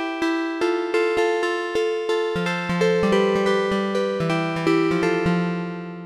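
Korg Mono/Poly V2 software synthesizer playing its "Concert Harp" preset through a hall reverb: a run of plucked, harp-like notes, about three a second, each with a sharp attack and fading away. A lower bass note joins about halfway through.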